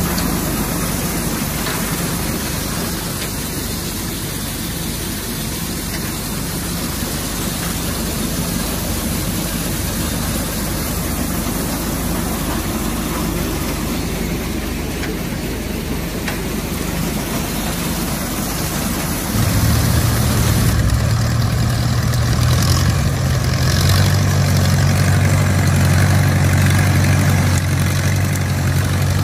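Old belt-and-pulley farm machine running off a tractor's PTO shaft, with a steady mechanical hum of engine and machinery. About two-thirds in, the sound switches abruptly to a louder, steady tractor engine with a strong low hum as a tractor-mounted corn picker works through standing corn.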